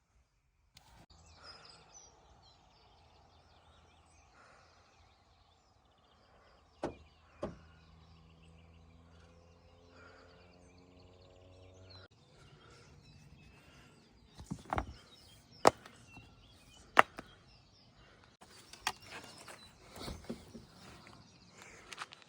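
Outdoor ambience with faint birds chirping and a steady low hum, then a series of sharp clicks and knocks in the second half, the loudest two about a second and a half apart.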